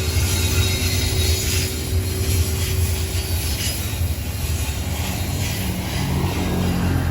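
Intermodal freight train rolling past, a steady rumble of wagons on the rails.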